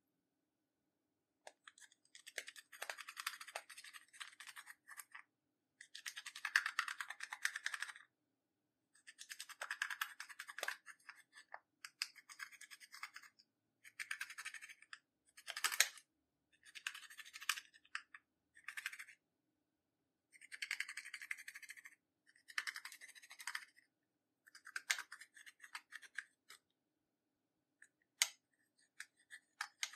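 A metal-tipped tool scraping and crushing pressed eyeshadow in a plastic palette: gritty, scratchy bursts of a second or two at a time with short pauses between, and a few sharp clicks as the tip knocks the palette.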